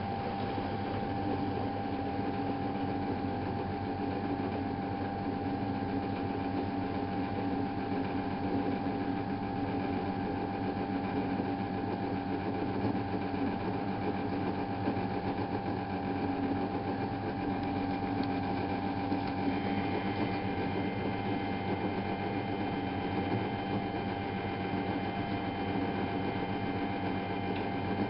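Miele Novotronic W830 washing machine running, a steady motor hum with a constant whine above it. About twenty seconds in, a few higher-pitched whining tones join.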